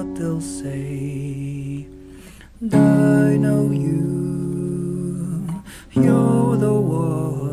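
Acoustic guitar chords, strummed and left to ring. A new chord is struck about three seconds in and again about six seconds in.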